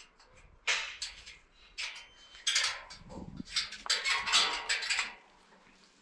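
Rustling and light clattering in short bursts as a straw hat and clothing are handled against a wooden post and wire-mesh fence.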